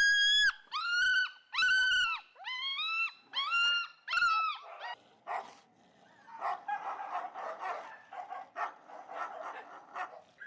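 A dog yelping in a rapid run of short, high-pitched cries, about seven in the first four and a half seconds, each rising and falling in pitch. After that come fainter, busier sounds with sharp clicks.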